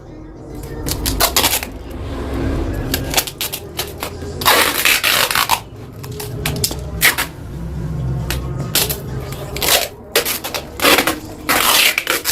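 Irregular knocks and clatter of objects being handled, with two short rasping scrapes of about a second each, one in the middle and one near the end.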